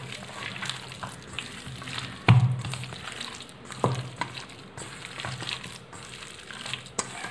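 Chicken pieces in wet masala paste squished and kneaded by hand in a stainless steel bowl: irregular wet squelches and crackles, with a louder knock about two seconds in and a smaller one about four seconds in.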